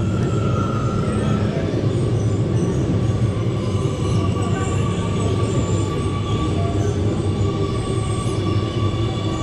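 Amsterdam metro train running beside an underground platform: a steady low rumble with thin high whining tones over it.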